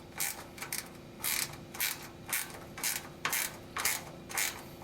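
Ratcheting 5/16-inch end wrench clicking in short bursts, about two strokes a second, as it backs out a belt guard bolt.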